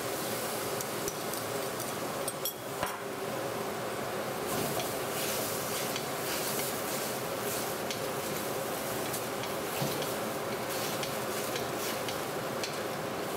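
Stir-frying in a wok: a steady sizzle under scattered clicks and scrapes of a wooden spatula against the wok as eggplant and pork are tossed in their sauce.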